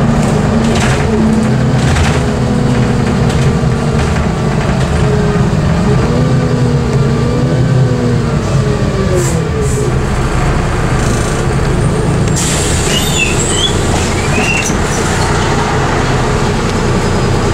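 Modulo M108d diesel midibus heard from inside the passenger cabin while driving: steady engine and road rumble, with the engine note rising and falling under acceleration, then dropping away about ten seconds in as the bus slows. Brief faint high squeals follow a few seconds later.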